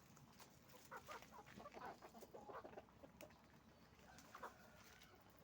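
A flock of chickens clucking, many short overlapping calls, busiest in the first three seconds with another burst of calls near the end.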